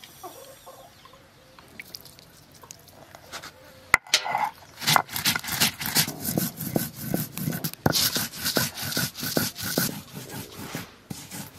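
Mustard seeds ground by hand on a flat stone slab with a stone roller (sil-nora): after a quieter start and a sharp knock about four seconds in, the roller scrapes back and forth in fast, rhythmic gritty strokes as it crushes the seeds into paste.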